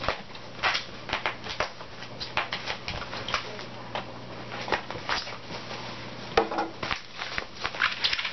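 Plastic packing wrap crinkling and rustling in the hands as a beer bottle is unwrapped, in many irregular short crackles.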